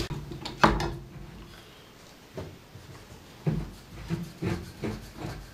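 Metal bar clamps being handled and tightened on a glued-up wooden board: two sharp knocks near the start, then several softer clicks and knocks.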